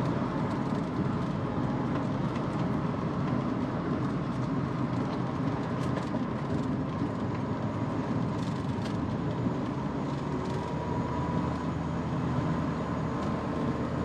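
Steady road and engine noise from a Suzuki Every Wagon kei van driving along.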